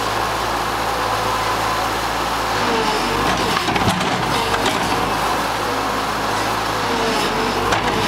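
Bobcat skid-steer loader's diesel engine running steadily under load as the bucket pushes against a tree root ball. A whine rises and falls a couple of times as the machine works.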